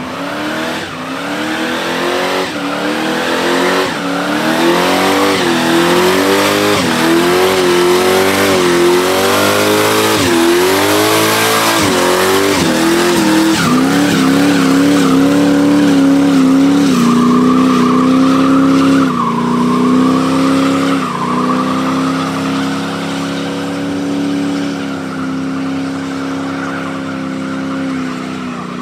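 Early-1970s Chevrolet Nova doing a burnout. The engine revs up and down in quick surges for about the first half, then is held high and fairly steady while the spinning rear tyre squeals.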